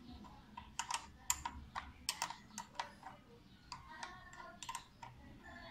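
Irregular sharp clicks and taps of a small hand tool working on a motorcycle's handlebar lever mount, metal against metal and plastic.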